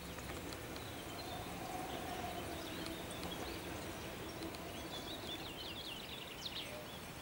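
Outdoor garden ambience with a steady low rush, and a songbird singing a quick run of high chirps about five seconds in.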